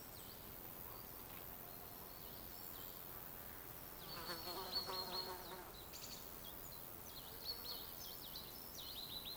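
Forest ambience: a flying insect buzzes past about four seconds in, its hum lasting a second or so, while small birds give quick, high, repeated chirps, more of them in the second half.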